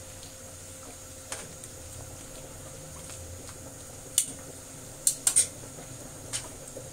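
Metal tongs clicking and tapping against a nonstick wok while turning bok choy in hot water: about six sharp taps, the loudest a quick run of three about five seconds in, over a steady low hiss.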